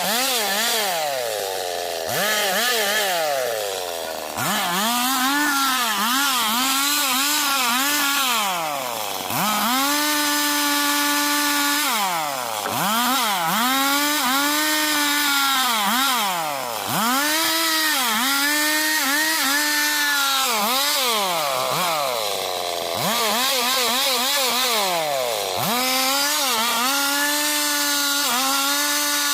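Stihl two-stroke chainsaw cutting wood lengthwise into boards. Its engine holds at high revs with a wavering pitch as the chain bites, and it drops back toward idle and revs up again several times between passes.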